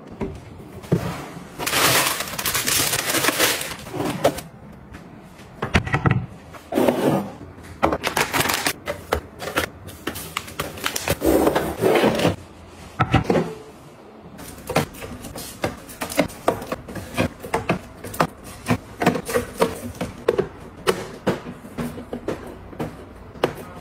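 Household items and packaging being handled and set down: an irregular run of clicks, taps and knocks, with a longer stretch of rustling about two seconds in and shorter rustles later.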